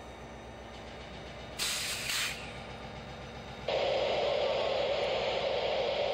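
Air hissing from a VIA Rail F40PH-2 diesel locomotive: a short sharp burst about a second and a half in, then a loud steady rushing hiss that starts abruptly past the halfway mark and cuts off sharply at the end.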